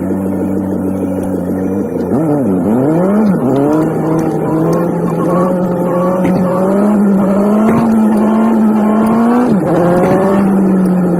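Nissan 180SX engine running under way, played back at about three and a half times normal speed. The revs dip sharply twice about two seconds in, then climb slowly and fall away near the end.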